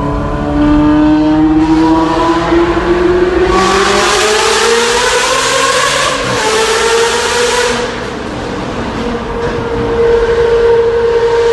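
Ferrari engine accelerating in a tunnel, its note climbing steadily for about six seconds with a loud hiss over it, then holding a steady higher note.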